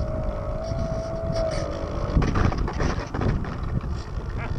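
Electric motor and propeller of an RC Super Cub plane whining steadily in flight, the pitch wavering slightly. About two seconds in the whine cuts off suddenly, leaving irregular rumbling and knocks.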